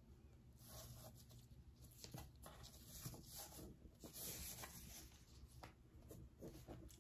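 Faint rustling and scraping as a ribbon bow is untied and a small cardboard gift box is opened.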